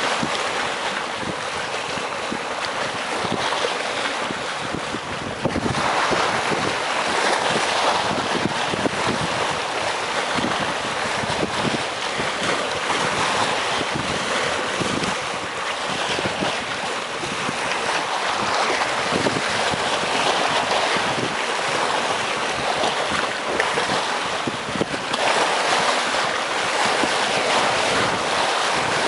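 Sea waves washing against breakwater rocks: a continuous rushing surf, swelling louder about five seconds in and again near the end.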